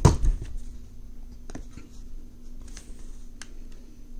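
Small metal diecast car parts and a hand drill being handled: a knock right at the start, then light, scattered clicks.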